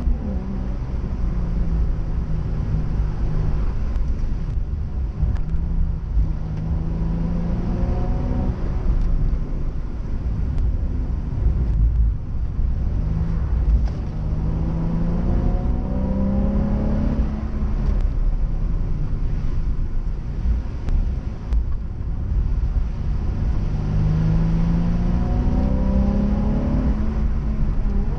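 Nissan 350Z's 3.5-litre V6 engine revving hard and repeatedly climbing in pitch, then dropping back, as the car accelerates out of corners and lifts for the next. A heavy, steady low rumble runs beneath it.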